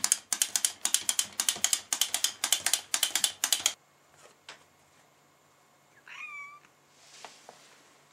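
Wind-up walking toy chick's clockwork clicking fast and evenly, cutting off suddenly a little past halfway as it runs down or stops. About six seconds in, a cat gives one short meow.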